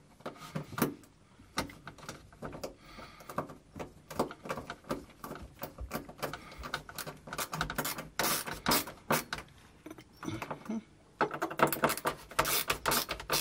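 Screwdriver driving a small screw into a washing machine's metal door hinge: a run of small, irregular clicks and scrapes of tool on screw and hinge, thickest in two spells around the middle and near the end.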